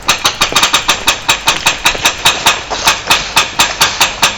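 HPA-powered airsoft rifle firing a rapid string of shots, about eight a second, with each sharp crack close and loud.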